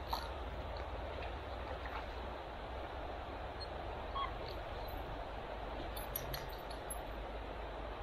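Steady rushing of stream water, with a few faint ticks.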